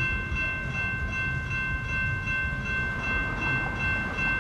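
Electronic railroad crossing bell ringing in quick, even strikes, about three a second, over a low rumble of rail traffic.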